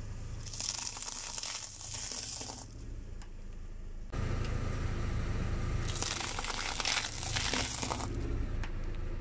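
A car tyre rolling over and crushing brittle objects: two stretches of crackling crunch, the first starting about half a second in and lasting about two seconds, the second starting around six seconds in. Under them the car's engine runs with a low steady hum that gets louder about four seconds in.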